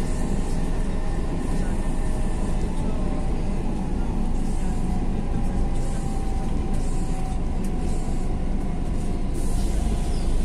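Madrid Metro Serie 5500 train running, heard from inside the car: a steady rumble of wheels on rail with a few faint steady tones above it, and a high hiss coming in near the end.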